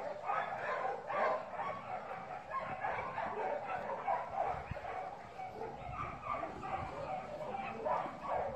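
Dogs barking and yipping without a break, the calls overlapping one another.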